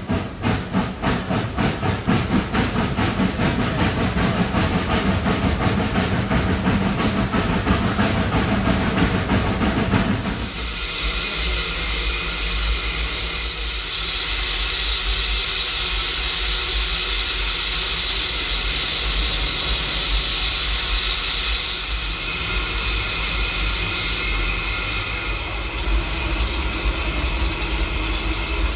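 For about the first ten seconds, the rhythmic exhaust chuffing of a steam locomotive; then a steady hiss of steam from a Baldwin-built 0-4-0T tank locomotive standing in steam, over a low rumble. The hiss grows louder for about eight seconds in the middle.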